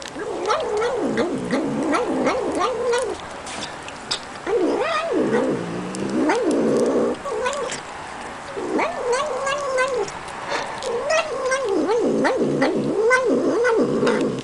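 Calico cat eating dry kibble, making a wavering, repeated 'mnjam mnjam' vocal sound as it eats, with sharp crunching clicks as it bites the kibble.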